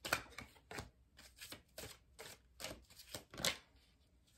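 A tarot deck being shuffled and handled by hand: a run of crisp, irregular card flicks and slaps, about three a second, the loudest just after the start and about three and a half seconds in.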